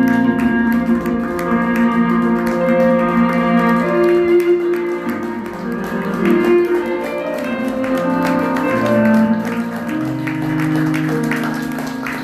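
Music played for the bride's entrance, with plucked guitar-like notes over held tones.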